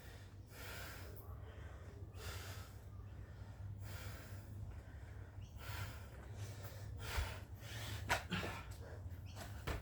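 Heavy, gasping breathing from a person exerting themselves through burpees, a loud breath about every second and a half, over a low steady hum.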